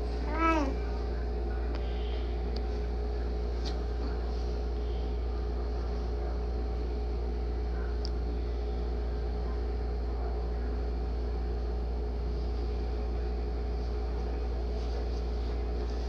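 Steady machine hum, a low drone with a few steady tones above it, unchanging throughout. About half a second in there is a single short vocal sound that rises and falls in pitch.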